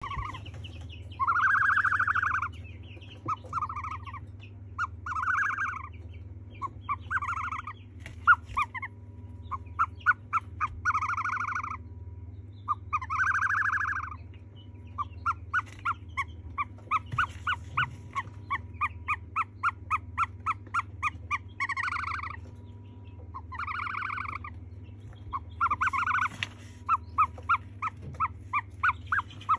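Ostrich chick calling: rounded whistling calls of up to about a second, alternating with runs of short peeps about two a second, over a steady low hum.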